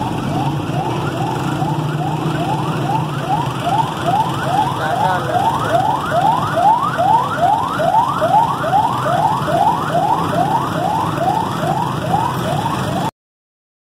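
A vehicle siren sounding a fast yelp: a rising whoop repeated about two and a half times a second, growing louder through the middle, over a low traffic rumble. The sound cuts off suddenly near the end.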